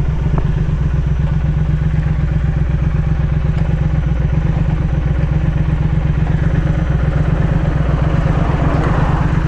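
Triumph Speed Twin 1200's parallel-twin engine running steadily at low revs and idle as the bike rolls to a stop.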